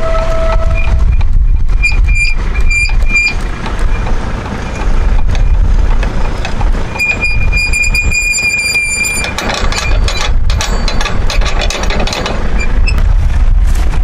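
John Deere diesel tractor running at idle with a steady low rumble, while a high electronic alarm beeps over it: a brief lower tone at the start, four short beeps about two seconds in, and one long beep about seven seconds in.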